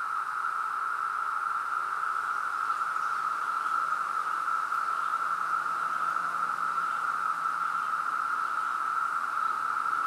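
Chorus of many 17-year periodical cicadas: a steady, even drone of overlapping buzzing with no breaks.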